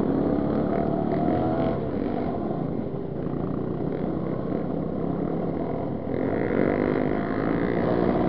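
Two-stroke engine of a 1995 Yamaha DT 200 dirt bike running under changing throttle on a trail ride, with the pitch wavering up and down. About six seconds in it gets louder and revs up.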